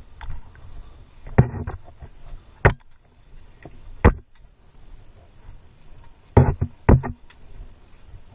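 Five sharp knocks or clacks spread over a few seconds, two of them close together near the end, over a low steady background.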